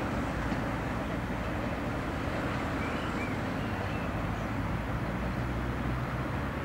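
SM42 diesel-electric locomotive's engine running steadily as it hauls a train of tank wagons away along the track.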